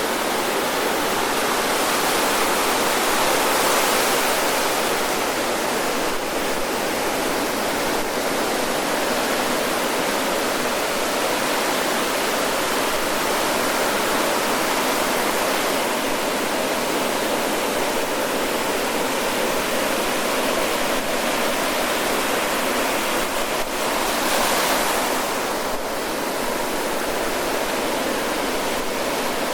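Ocean surf breaking and washing onto the shore in a continuous rushing hiss, swelling louder about three seconds in and again near twenty-five seconds in as larger waves break.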